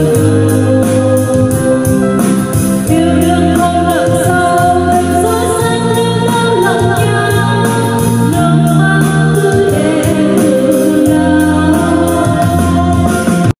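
Woman singing karaoke into a wireless microphone over a backing track with a bass line and a steady beat, played through an NT 2039 portable mini karaoke speaker.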